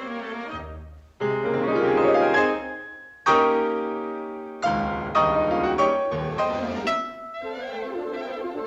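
Cartoon score music led by piano: loud chords struck one after another, each ringing on and fading, with a brief drop about a second in and a quicker run of chords around the middle.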